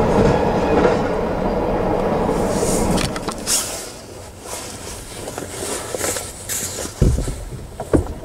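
Norfolk Southern freight train's last cars rolling away, a steady rumble that fades out about three seconds in. After it come scattered clicks and knocks, with a few sharp thumps near the end.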